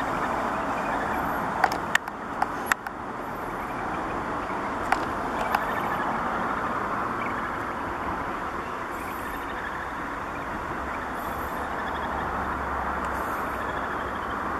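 Australasian darter chicks begging while a parent feeds them: a steady hiss, with a few sharp clicks in the first six seconds.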